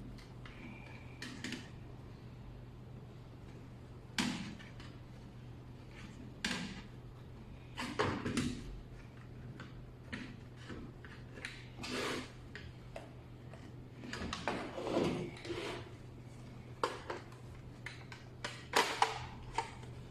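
Hands handling an NVR's case and a hard drive: irregular short scrapes, slides and clicks, over a steady low electrical hum.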